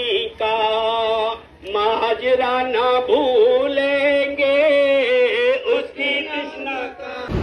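A single male voice chanting a mournful Muharram lament (noha) in long held, wavering notes, with a short break about one and a half seconds in.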